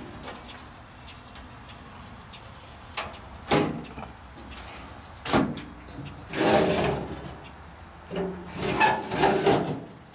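Metal cabinet doors of a stainless steel gas grill being opened, shut and handled: a series of separate clunks and creaks, several of them longer and scraping.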